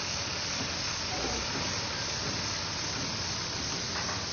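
Floodwater of a swollen river rushing past a railroad bridge's piers: a steady, even hiss.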